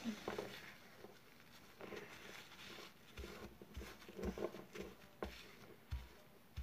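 Homemade glue slime being stirred and worked in a small cup, giving irregular soft sticky clicks and taps, with a few low thumps in the second half.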